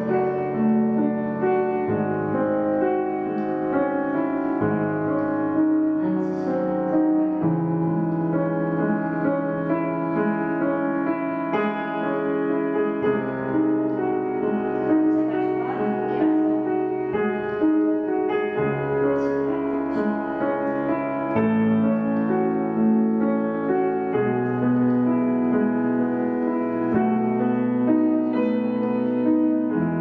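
Grand piano played solo at a slow, steady pace: low bass notes held for a few seconds at a time under a flowing stream of higher notes.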